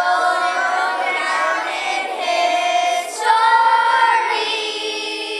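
A group of children singing together in long held notes, with a short break for breath about three seconds in.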